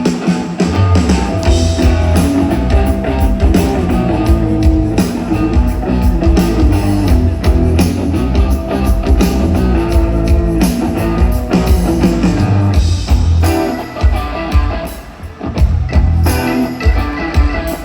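Live band playing an instrumental passage at a concert, with heavy bass and steady drums under pitched instruments, recorded from the crowd on a phone. The music drops briefly about fifteen seconds in, then comes back in full.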